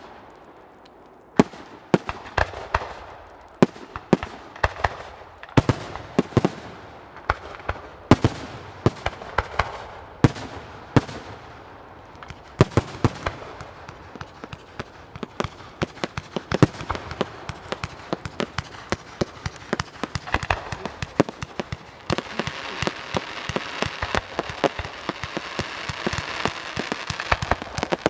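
Fireworks display: sharp bangs of bursting shells following one another at irregular intervals, thickening into a dense crackle of rapid small pops over the last several seconds.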